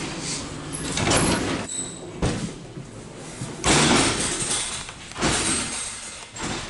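The sliding interior doors of an ED4M electric train carriage being rolled open and shut, with a rushing slide several times and a couple of sharp knocks as a door hits its stop.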